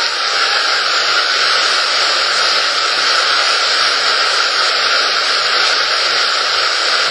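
Steady, loud rush of whitewater river rapids, an even roar of churning water that holds without a break.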